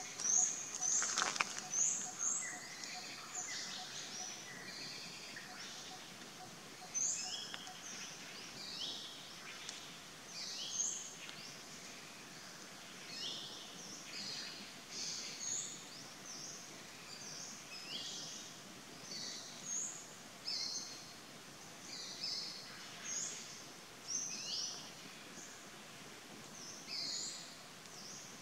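Birds chirping: short, high calls that slide down in pitch, repeating about once a second or so over a steady background hiss, loudest in the first couple of seconds.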